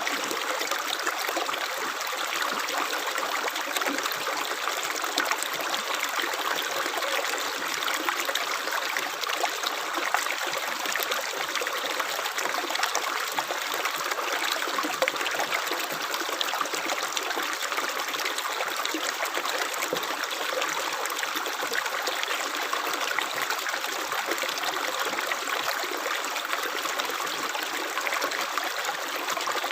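Running water of a small stream, trickling and babbling steadily.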